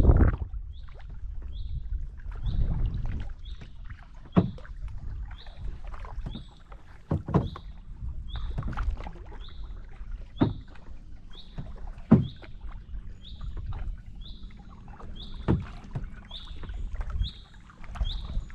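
Kayak paddle strokes dipping and splashing every two to three seconds, over a low rumble of moving water and wind on the microphone. A small high chirp repeats steadily in the background throughout.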